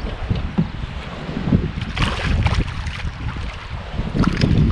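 Wind buffeting the microphone in gusts, with small waves lapping against a kayak hull and a couple of sharper splashes about two and four seconds in.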